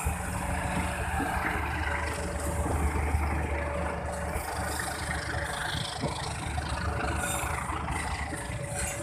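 Passenger train carriages rolling steadily past a level crossing, steel wheels running on the rails with scattered faint knocks, over a low steady engine hum from motorcycles idling at the crossing.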